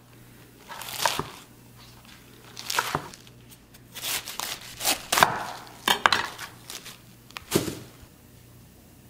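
Chef's knife cutting through crisp yu choy stalks and leaves onto a wooden cutting board. The chops come one at a time, unevenly spaced about a second apart, and stop shortly before the end.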